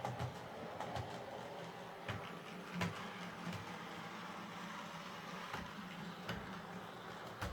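Bachmann Class 47 OO gauge model locomotive running on track: a steady low motor hum with a few sharp clicks now and then, and no screech, its bogie bearings freshly lubricated.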